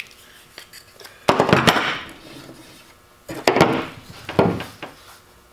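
Metal pliers and a small plastic pipe fitting handled on a workbench: three short bursts of clattering and scraping as the fitting is worked free with the pliers and the pliers are put down on the table.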